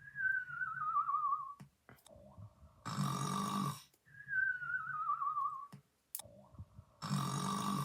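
Cartoon-style snoring, twice: a loud, harsh rattling snore on the in-breath, then a wavering whistle that slides downward on the out-breath, repeating about every four seconds.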